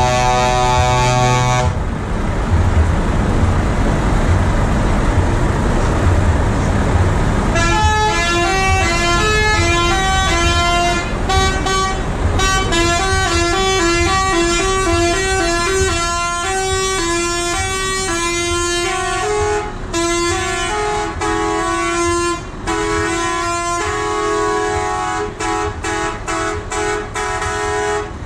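Truck air horns. A held blast stops about two seconds in, then a few seconds of low engine rumble. From about eight seconds on, horns sound in a quick run of changing notes, repeated like a tune, with short breaks near the end.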